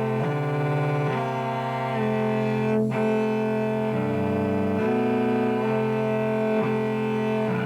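Solo cello bowing double stops: one note holds steady while the other note moves up and down, changing every second or so. This is a left-hand exercise that sets one stationary finger against one moving finger, to train the stretch between the fingers.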